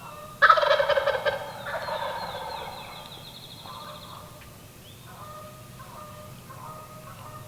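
A wild turkey gobbler gobbling once from his roost tree: a loud, rattling gobble about half a second in that trails off over the next couple of seconds. Songbirds sing faintly around it.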